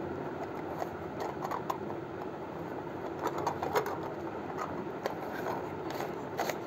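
Steady low background hum of room noise, with a few faint clicks from handling.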